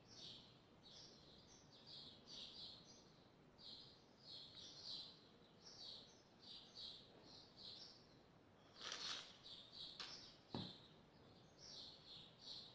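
Faint bird chirping: a steady run of short, high chirps, several a second. A brief rustle and a light knock come about nine to ten seconds in.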